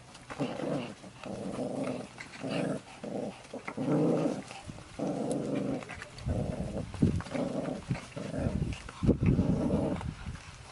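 A Pomeranian growling in repeated short bouts, about a dozen in all, with low bumps and scuffles mixed in during the second half.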